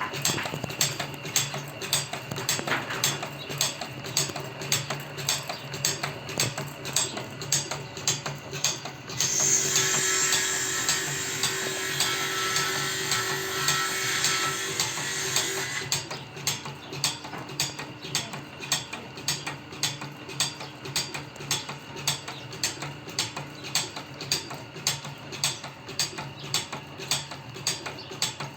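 Bandsaw blade tooth-setting machine working in a steady rhythm, about two sharp mechanical clicks a second as it steps the blade and sets each tooth, over a constant motor hum. From about ten seconds in to about sixteen seconds, a louder hiss with a whine runs over the clicking.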